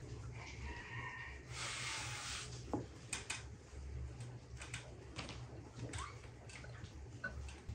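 Quiet handling sounds of dough being spread on a wooden board and mixed in a glass bowl: a soft rustling stretch, a few light clicks, and a low steady hum underneath.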